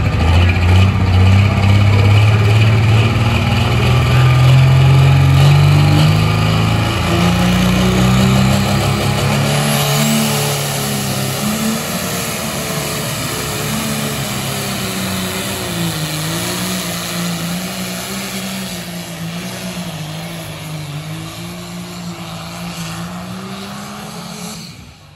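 Minneapolis-Moline G1000 pulling tractor's diesel engine working at full power as it drags the sled. The pitch climbs over the first ten seconds, then wavers high up and slowly fades as the tractor moves off down the track.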